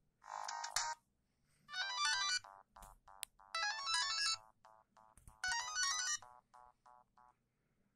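Siemens CF62 mobile phone playing a synthesized polyphonic ringtone. A short burst comes about half a second in, then a short melody phrase repeats three times with brief pauses between, followed by a few short notes that fade away.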